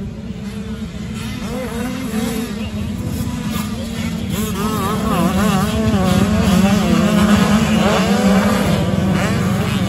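A pack of Supermini-class motocross bikes racing, several engines revving up and down over one another. The sound grows louder as the pack comes nearer and the riders hit the jumps.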